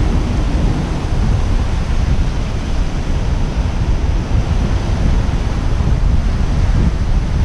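Wind buffeting the microphone with a steady low rumble, over small waves breaking and washing up a sandy shore.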